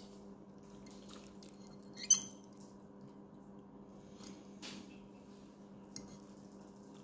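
Metal fork clinking and scraping against a ceramic dish while digging into baked pasta, with one sharp ringing clink about two seconds in and a lighter tap near the end, over a steady low hum.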